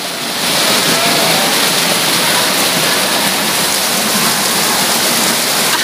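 Steady rushing of water running down a water slide.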